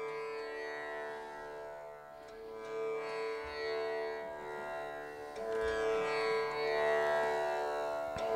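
Tanpura drone: its strings plucked one after another in a repeating cycle, ringing together into one steady drone that grows a little louder about three seconds in and again past five seconds.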